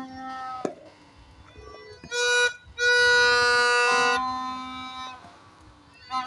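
Reedy, horn-like tones at several pitches, held and overlapping, in blasts of one to two seconds; the loudest two come a little past the middle, with quieter held notes around them.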